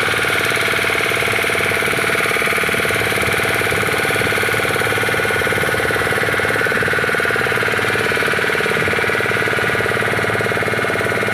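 Motorboat engine running steadily, heard from aboard the boat, with a rapid, even beat of firing pulses.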